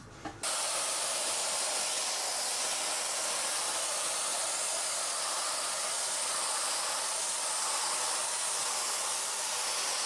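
AiRider canister vacuum cleaner switched on about half a second in, then running at a steady, even hiss as its bristle brush attachment is worked over a computer keyboard.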